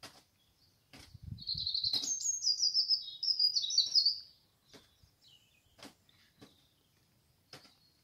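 Common nightingale singing: a loud phrase of rapid, high repeated notes starting about a second in and lasting about three seconds, with short sharp clicking notes scattered before and after it.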